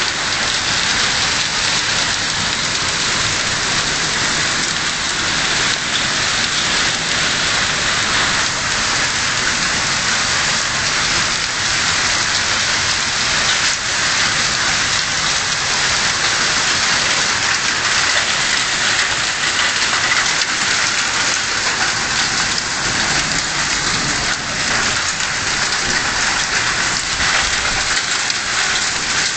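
Heavy hail of large hailstones hitting the house's roof and the ground outside, a loud, steady din of countless impacts with no let-up.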